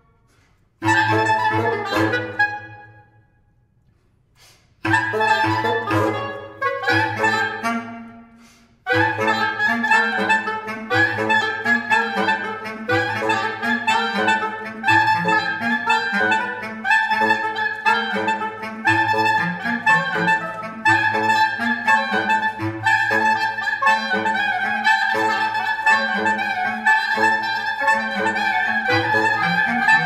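A reed quintet of oboe, clarinet, soprano saxophone, bass clarinet and bassoon playing fast, short, accented staccato figures. Two brief outbursts are separated by short pauses. From about nine seconds in, a continuous, driving rhythmic passage follows.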